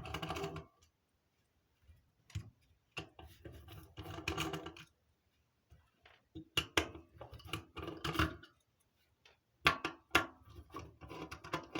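Hand tools and metal parts clicking, scraping and clattering in short bursts with pauses between them as screws are undone and a section of a vintage radio telephone's metal housing is opened.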